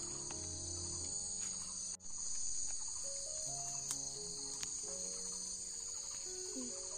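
A steady, high-pitched insect chorus chirring without a break, with background music of held notes underneath. The sound cuts out briefly about two seconds in.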